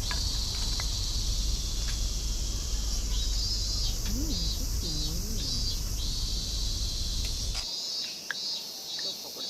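Insects shrilling steadily in a pulsing chorus, over a low rumble that stops abruptly near the end, with a few faint clicks.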